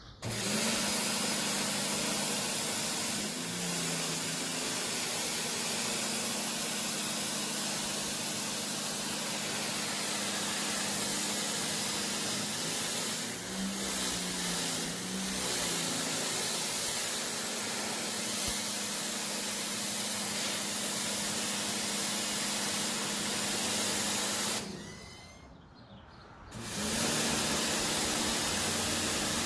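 Sun Joe SPX3200 14.5-amp electric pressure washer spraying: the hiss of the water jet over the steady hum of its motor-driven pump. It cuts off abruptly about five seconds before the end and starts again about two seconds later, as the spray trigger is let go and pulled again.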